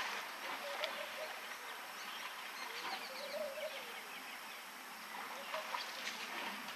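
Outdoor bush ambience with a steady background hiss and faint scattered ticks. Two short warbling bird calls stand out, one about a second in and a longer one about three seconds in.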